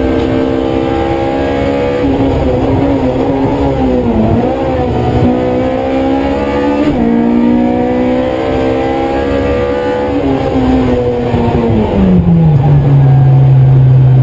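Honda Civic EK9 Type R's 1.6-litre VTEC four-cylinder engine at full throttle, heard from inside the cabin, climbing in pitch and dropping back at each upshift, about three times. Near the end the pitch falls and settles into a steady, louder low note.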